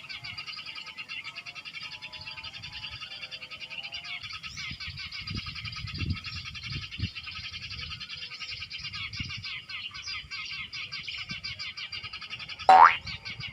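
Recorded Eurasian tree sparrow calls played through a speaker as a bird-trapping lure: dense, rapid chirping throughout, with lower wavering whistles in the first few seconds. Near the end a single loud call slides sharply down in pitch.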